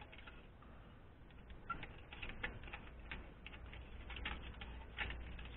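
Hard plastic phone cases clicking and rubbing against each other as they are handled and fanned apart: an irregular scatter of faint light clicks and taps.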